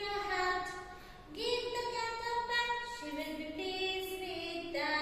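A female voice singing a slow tune in long held notes that step up and down in pitch, with a short breath about a second in.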